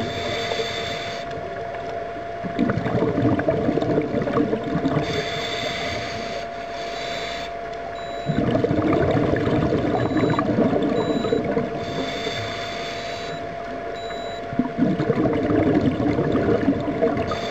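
Scuba diver breathing through a regulator underwater: a short hiss on each inhale, then a few seconds of bubbling exhaust, three breaths in all, over a steady faint hum.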